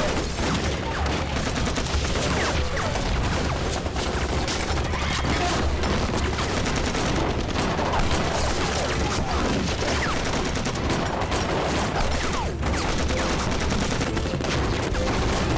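Sustained battle gunfire: many rifles and submachine guns firing continuously in overlapping rapid shots, with no let-up.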